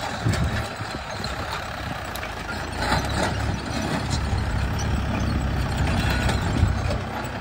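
Mahindra Yuvo Tech+ 585 tractor's four-cylinder diesel engine running steadily under heavy load, pulling a mouldboard plough through hard, dry soil, with a few brief sharp ticks over the engine.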